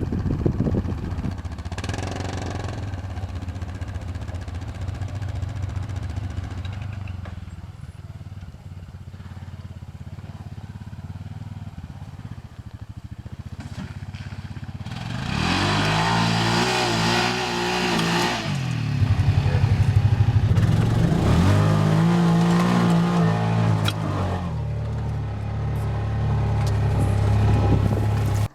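A motor vehicle engine running under way, steady at first, then revving up and back down twice in the second half before settling into a steady run.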